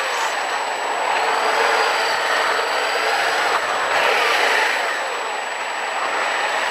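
Yamaha MT-07's parallel-twin engine running while the bike is ridden in traffic, heard through a rush of wind noise on the rider's camera microphone.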